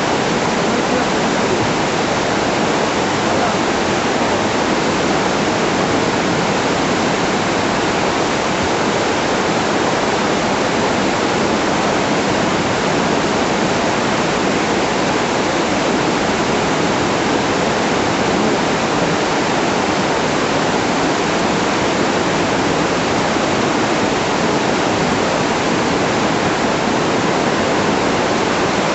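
Flash-flood torrent of muddy water rushing down a town street, a loud, steady rush of water that does not let up.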